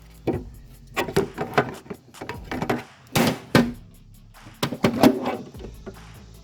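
A run of hard plastic knocks and clicks from a DeWalt 20V battery pack being handled and seated in the mower's battery compartment, in three clusters about two seconds apart.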